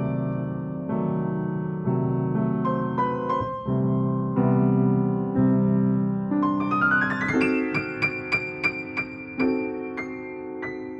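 Piano music: held chords, then a quick rising run of notes about two-thirds through, followed by lighter, separate notes higher up.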